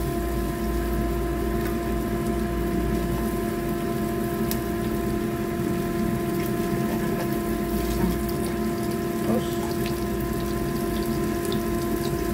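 Battered fish fillet pieces sizzling in shallow hot oil in a frying pan, with scattered small pops and crackles, over a steady low hum.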